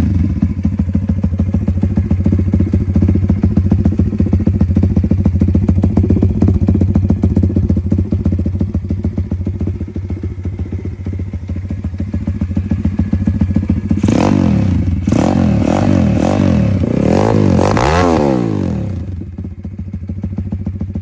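M2R RF140 140cc single-cylinder four-stroke pit bike engine idling steadily, just after starting. About fourteen seconds in, the throttle is blipped several times, with the pitch rising and falling each time and the last and highest rev near eighteen seconds. It then settles back to idle.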